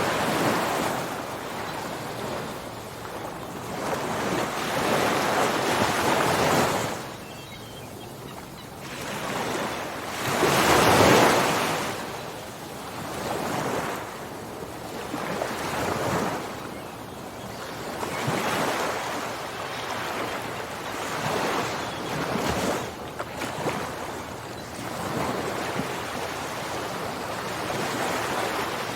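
Ocean surf: waves breaking and washing in, swelling and falling away every few seconds, with the biggest surge about eleven seconds in.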